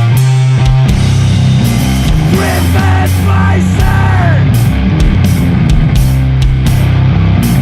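Sludge metal: heavy, distorted guitar and bass holding low notes over drums, with sliding pitch bends from the guitar.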